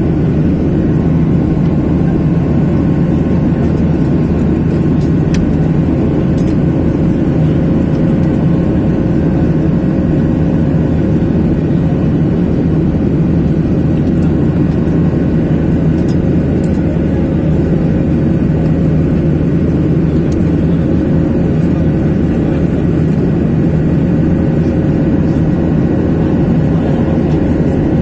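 Steady engine and airflow noise inside an airliner's passenger cabin during the climb, with a faint steady tone above it.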